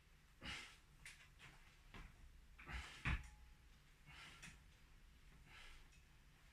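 Faint, irregular soft thuds from gloved punches with short breathy hisses, several in a few seconds, the loudest about three seconds in.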